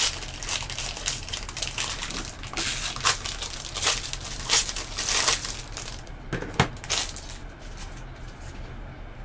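Plastic trading-card pack wrapper crinkling and tearing as the pack is unwrapped by hand, with a sharp click a little past two-thirds through. The handling noise then dies down.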